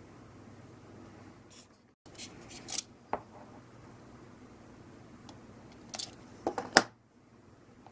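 Quiet room tone broken by short clicks and scraping handling noise, in a cluster about two seconds in and another about six seconds in, the last one loudest.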